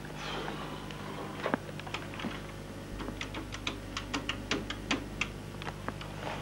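Plastic keys clicking in a quick, irregular run that grows dense in the second half.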